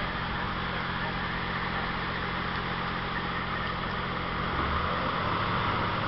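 Diesel engine of a hydraulic excavator running steadily, with a continuous mechanical hum and hiss. Its note steps up and gets slightly louder about four and a half seconds in, as the engine takes load.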